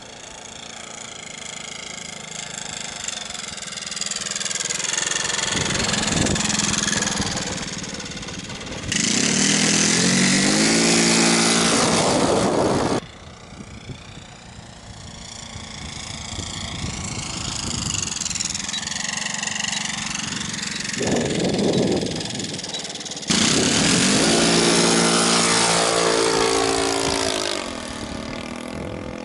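Hangar 9 Van's RV-4 RC model plane's motor and propeller in flight, the pitch rising and falling as it passes. Twice it jumps to a loud full-throttle run lasting about four seconds.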